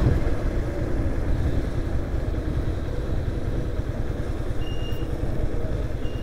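Motorcycle engine running steadily, with a heavy low rumble.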